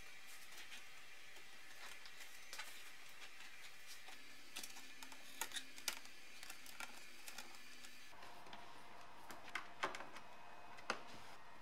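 Hard plastic clicking and knocking as a black plastic air duct is pushed and seated into a BMW E30 dashboard frame by hand: a handful of sharp clicks, mostly in the second half, over a faint steady room hiss.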